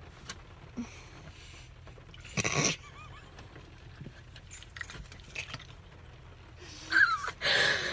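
Two young women laughing and giggling, with one loud burst of laughter about two and a half seconds in and higher, rising-and-falling laughter near the end, over a low steady hum.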